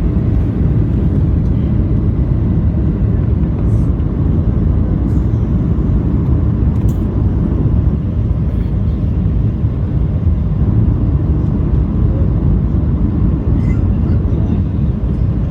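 Airliner cabin noise in flight: a steady, loud low roar of engines and rushing air heard from inside the passenger cabin.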